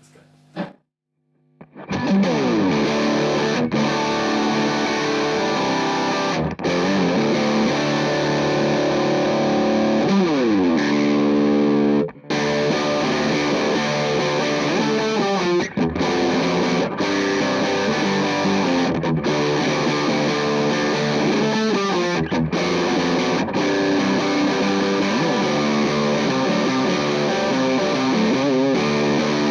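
Electric guitar played through a JHS Angry Charlie distortion pedal, a Marshall JCM 800–style overdrive, giving a loud, distorted tone with sustained chords and riffs. The playing starts about two seconds in and breaks off briefly partway through.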